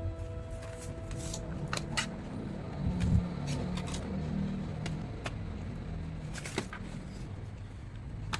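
Scattered sharp little clicks and taps of small parts being handled on a laptop, with a soft thump about three seconds in.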